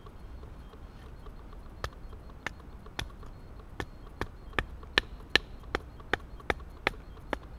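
Mora Bushcraft Triflex knife being batoned into a piece of wood: about a dozen sharp knocks on the blade's spine, roughly two to three a second, starting about two seconds in.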